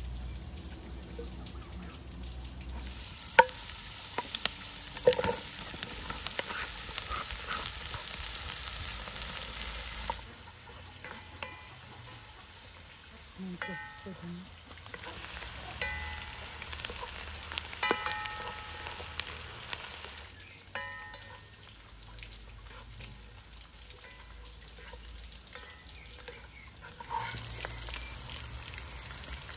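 Sliced onions frying in butter in a cast-iron pot: a steady sizzle, quieter at first with a few sharp knocks of a wooden spatula stirring against the pot, then louder and brighter from about halfway through.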